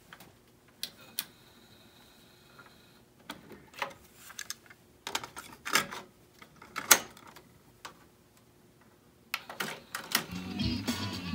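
Sony TC-RX370 stereo cassette deck being loaded by hand: a series of plastic clicks and clacks as the cassette door is ejected, the tape inserted, the door shut and the transport keys pressed. Near the end, music from the tape starts playing on the repaired deck.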